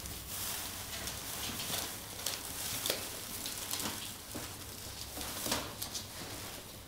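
Shredded paper rustling and crinkling as ferrets dig and burrow through a heaped tray of it, with an irregular run of sharper crackles over a steady crinkle.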